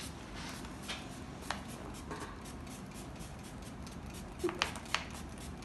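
Hand-held spray bottle giving a few short squirts to mist an owl: one about a second and a half in, then two in quick succession near the end, over low room noise.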